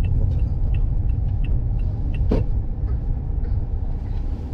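Steady low rumble of a car driving, heard inside the cabin. A light regular ticking about three times a second runs through it, and there is one sharp click a little over two seconds in.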